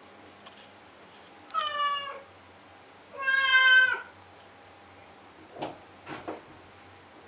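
Blue point Siamese cat crying to have a closed door opened: two long, loud yowls about a second apart, each falling slightly in pitch at the end.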